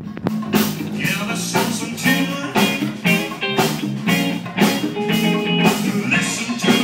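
Live band playing blues-rock, with electric guitar over drums keeping a steady beat of about two strokes a second. The music gets louder just after the start.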